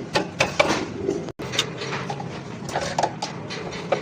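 Irregular sharp metallic clinks and knocks, like metal parts and tools being handled, over a steady low background hum; the sound drops out for an instant about a second and a half in.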